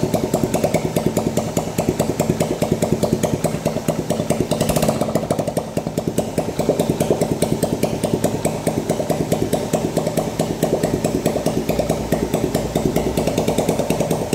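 Yamaha Jupiter Z's single-cylinder four-stroke engine running steadily at idle with its clutch and clutch cover removed, making the rough noise it has at every rev. The noise is still there with the clutch out, which points away from the clutch; the mechanic suspects a damaged bearing.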